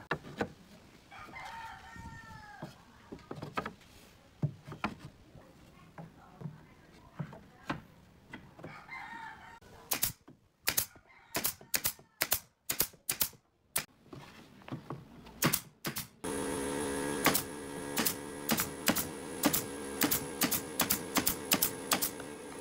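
Pneumatic brad nailer firing into pallet-wood boards: runs of sharp clicks, quickest in the middle. About sixteen seconds in, an air compressor's motor starts and runs with a steady hum under further shots.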